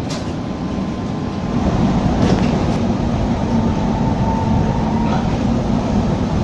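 ČKD Tatra T3 tram under way, heard from inside the passenger saloon: a steady rumble of wheels and running gear on the rails, with a few sharp clicks. The sound gets a little louder about a second and a half in.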